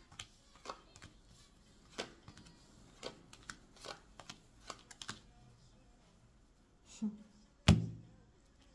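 Secret Key oracle cards being dealt one at a time off the deck onto a cloth-covered table: a run of sharp clicks of card on card for about five seconds. Near the end comes a louder thud as the deck is set down on the table.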